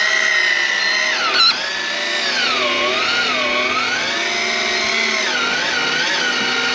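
Electric fishing reel's motor whining as it winds in a hooked fish on a deep-drop rig. Its pitch wavers slowly up and down as the load on the line changes, with a short dip about a second and a half in.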